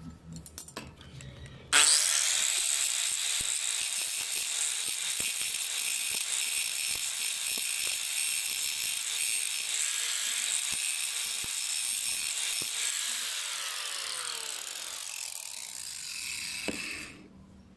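Angle grinder with an abrasive disc grinding a rusty steel scissor blade, throwing sparks. It starts suddenly about two seconds in as a loud, steady, high-pitched grinding noise, eases off a little late on, and stops abruptly near the end.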